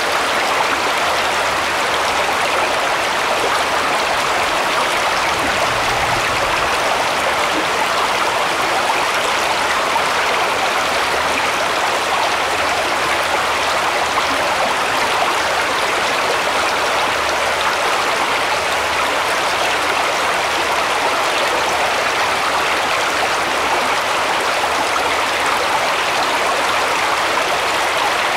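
Shallow woodland brook running over stones and around fallen logs, a steady babbling rush of water.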